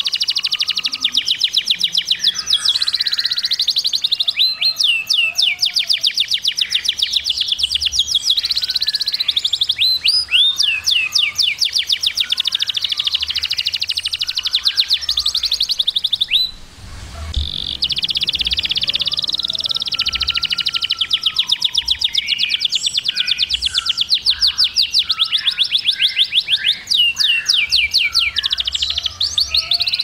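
Male domestic canary singing: long, fast trills of rapidly repeated high notes, broken by a few sweeping whistles and a brief pause about halfway through.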